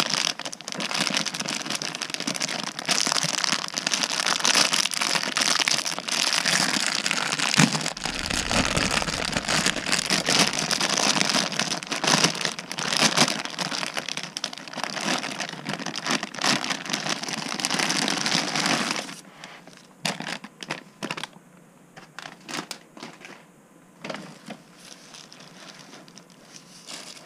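Clear plastic packaging bag crinkling and rustling continuously as a pair of boxing gloves is worked out of it by hand. After about two-thirds of the way through, the sound thins to quieter, scattered rustles and crackles as the gloves and their tissue-paper wrapping are handled.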